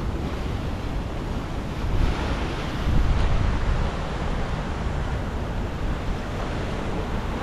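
Sea surf washing onto a rocky shore, with wind buffeting the microphone; the surf swells louder about three seconds in.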